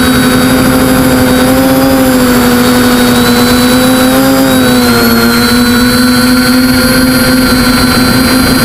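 TBS Discovery quadcopter's brushless motors and propellers whining steadily in flight, heard close up from the camera on the airframe. The pitch wavers slightly, dipping about five seconds in.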